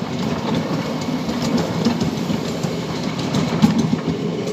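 Ride-on miniature railway train running along the track, heard from aboard: a steady rumble of wheels on rail with occasional light clicks.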